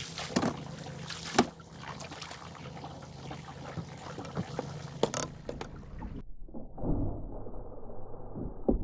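Push pole working a boat through very shallow water: water trickling and splashing around the pole, with a few sharp knocks, over a steady low hum.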